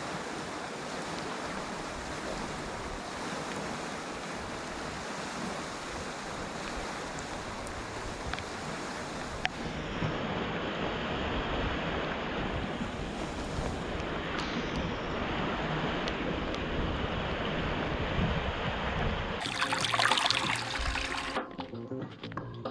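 Heavy water rushing at a brim-full dam during prolonged rain, a steady roar of flowing water. Its character changes abruptly about ten seconds in and again near the end, where it briefly gets louder before dropping off.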